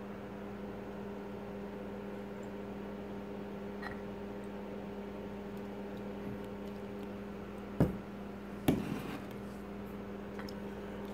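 Steady low electrical hum, with two short knocks about eight and nine seconds in from a pint glass being handled on a countertop.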